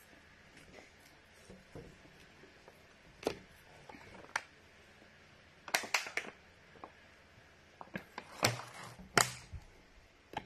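Scattered small clicks and taps from eating with the hand and drinking from a plastic water bottle. A quick cluster of clicks comes about six seconds in, and two louder knocks come near the end, over the steady faint hum of an electric fan.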